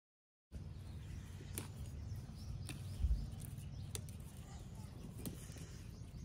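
Green chillies being picked by hand from a potted chilli plant: a few sharp snaps from the stems over a low rumble on the microphone, with a dull thump about three seconds in.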